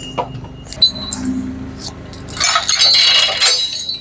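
Metal clinking and jangling in a dense flurry lasting about a second, starting around two and a half seconds in, over a low engine hum that fades early on.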